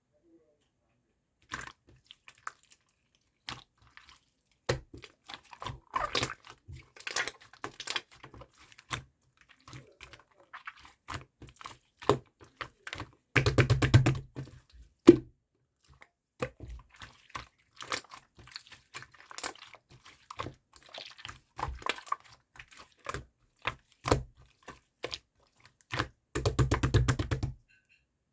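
Close-up chewing and biting of a marbled octopus: irregular crunchy, wet clicks. Two louder, denser stretches come about halfway through and near the end.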